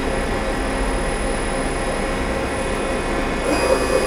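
Okuma Cadet LNC-8 CNC lathe running with its spindle turning slowly in the low range of its two-speed gearbox: a steady machine hum with faint whining tones. About three and a half seconds in, the sound shifts, with a higher whine coming in and the level rising slightly.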